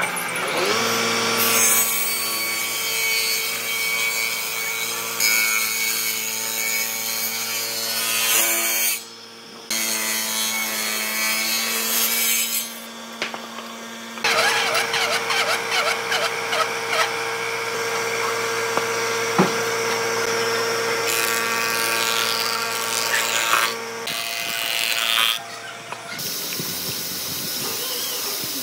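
Table saw motor coming up to speed, then running with a steady hum while its blade rips through wooden boards, interrupted by several short breaks. Near the end the hum gives way to a steady hiss.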